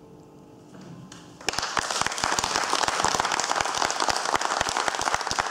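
The last held note of the music fades away, then an audience breaks into loud, steady applause about a second and a half in.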